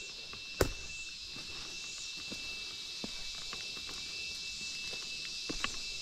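Footsteps and scattered knocks on bare rock, the loudest knock about half a second in, over a steady high-pitched background hiss with a thin steady tone.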